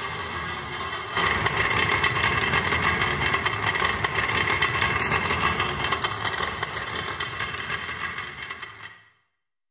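Loud, steady mechanical rumble that jumps louder about a second in, then fades away to silence near the end.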